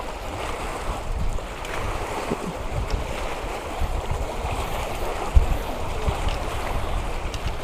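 Strong wind buffeting the microphone in gusts, over choppy water lapping and splashing. A single low thump a little over five seconds in.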